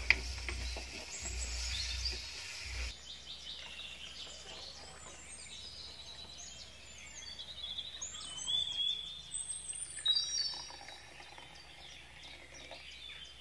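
Wild birds chirping and whistling in a garden: short rising and falling calls, several in quick succession in the second half. A low wind rumble on the microphone runs under the first three seconds and then cuts off.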